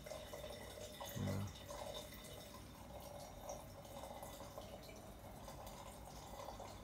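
Faint trickling and dripping of water in an aquaponics fish tank, with a short low thump about a second in.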